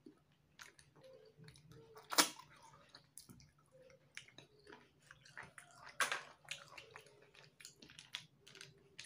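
Close mouth sounds of eating spicy rice-field snails: sucking the meat from the shells and chewing, a run of short wet slurps and clicks, two of them louder, about two seconds and six seconds in.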